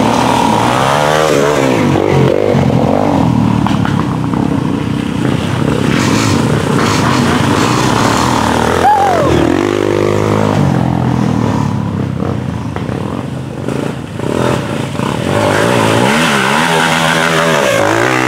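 Dirt bike engine revving up and down as it rides through thick mud, the pitch rising and falling with the throttle; a quick rise and drop about halfway through, and repeated revs near the end.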